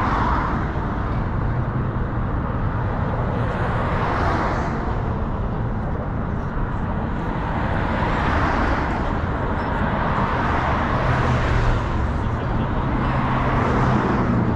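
Traffic on a highway bridge heard from its railing: a steady rushing noise that swells as vehicles pass every few seconds, with wind on the microphone. A low engine hum comes in near the end as a heavier vehicle passes.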